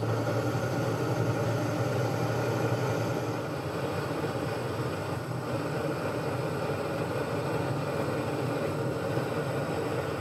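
Metalworking lathe running while an insert parting-off tool cuts through a spinning metal bar: a steady low motor hum with the cutting noise over it. The hum eases a few seconds in while the cutting noise carries on.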